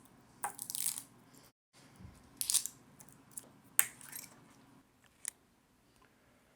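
A handful of short, sharp clicks and rustles, about six spread over five seconds, then quiet: close handling sounds.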